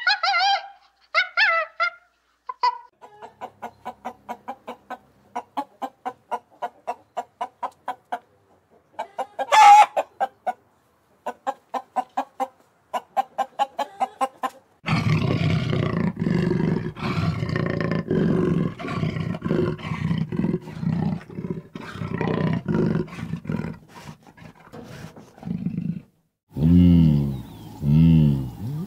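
Domestic chickens calling. First come a few loud honking calls. Then a hen clucks in a long, even run of short clucks, about three a second, broken once by a loud squawk. About halfway through, a dense din of many birds calling at once takes over, and a few lower, drawn-out calls come near the end.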